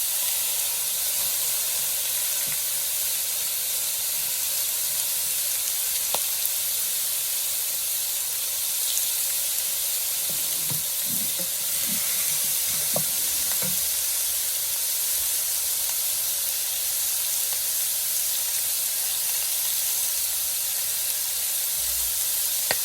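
Pork belly sizzling steadily in a hot pan as its fat renders out into oil, with a few scattered pops.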